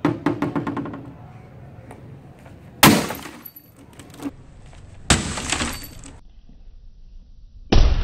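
An axe striking an old LG CRT computer monitor: a quick run of sharp knocks at the start, then three heavy blows about two and a half seconds apart, each followed by about a second of the tube's glass and the plastic case breaking and clattering.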